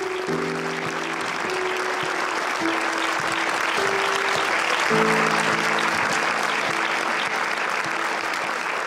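Theatre audience applauding at a curtain call, growing louder toward the middle, over background music with held instrumental notes.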